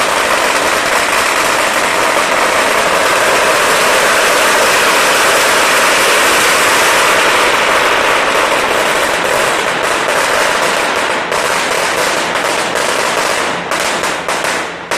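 A long string of large firecrackers going off loudly in a dense, unbroken crackle of bangs. About two-thirds of the way through the bangs thin out into separate sharp cracks, which die away near the end.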